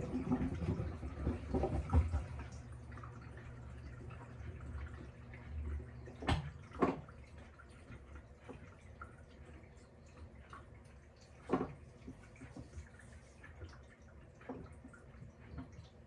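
Panasonic top-loading washing machine running: water sloshing and dripping in the tub over a low motor hum that stops about six seconds in. A few sharp clicks follow, two close together and one several seconds later.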